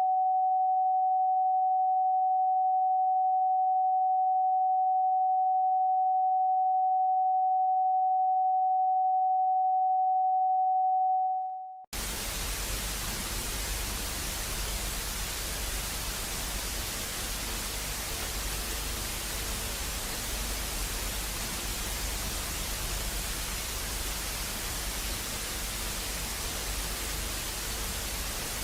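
A steady, single-pitched electronic tone holds for about eleven seconds, then stops and gives way to even static hiss, like a dead broadcast channel, for the rest of the time.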